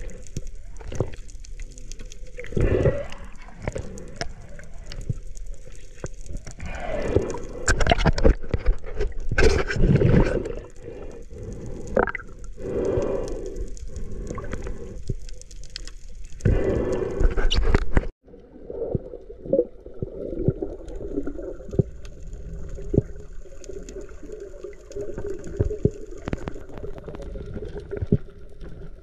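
Muffled water sloshing and gurgling as heard by a camera underwater, rising and falling in irregular swells with scattered clicks and knocks. The sound drops out for an instant about two-thirds of the way through, then carries on quieter and steadier.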